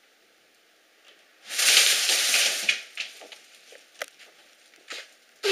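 A fabric pop-up cat tunnel crinkling loudly as a cat crashes into it about a second and a half in, followed by scattered ticks of paws scrambling on a hardwood floor and another short rustle near the end.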